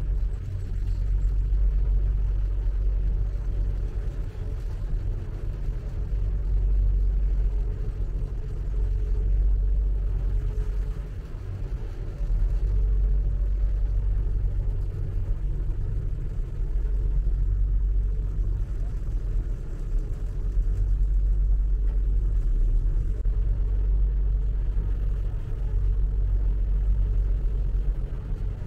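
A river boat's engine running steadily with a low rumble, its loudness swelling and dipping slightly throughout.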